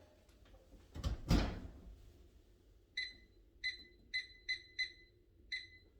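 Kitchen timer beeping six short, high electronic beeps in an uneven run, signalling that the muffins' baking time is up. A dull thump and rustle come about a second in.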